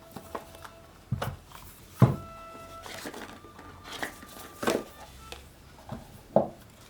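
A tarot deck's cardboard box being handled and opened: a handful of light knocks and taps, one a little after 2 seconds the loudest, over quiet background music.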